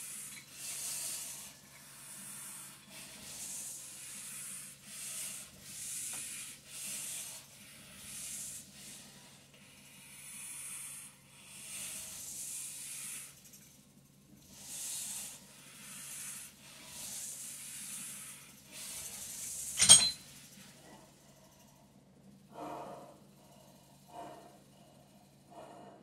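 Hissing breaths drawn hard through a breathing-resistance endurance mask, about one a second, over the faint steady hum of a vibration plate's motor. About two-thirds of the way in comes a single sharp metallic clank, the loudest sound, as the dumbbells are set down. After it come only a few softer breaths.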